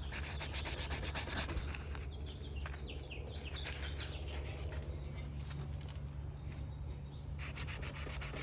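Rubbing on a painted car part to test whether the paint is single stage or clear coated, with a few short squeaks about three seconds in, over a steady low hum.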